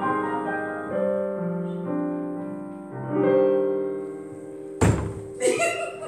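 Digital piano playing the final chords of a song's coda, with a new chord about every second; the last chord rings on and fades. Near the end a single sharp thump, then a brief voice sound.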